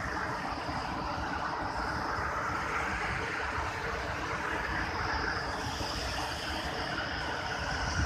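Steady roar of rushing water from the Dudhsagar Falls, a tall multi-tiered waterfall in peak monsoon flow. A thin, high, steady hiss above the roar grows a little stronger about halfway through.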